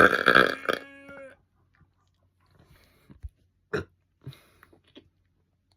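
A loud, deep belch forced up on command, lasting about a second and ending in a short pitched note. A few faint clicks follow.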